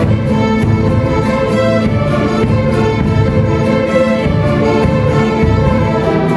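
Instrumental music with bowed strings, in an orchestral style, over a steady beat.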